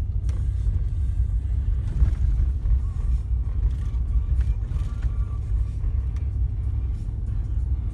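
Steady low rumble of a 2015 Ram pickup truck driving, heard from inside the cab.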